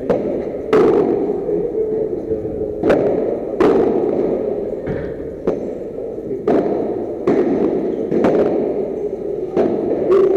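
Padel rally: sharp pops of the ball struck with padel rackets and bouncing, coming at irregular intervals about every half second to second, each ringing on briefly in a large indoor hall over a steady background noise.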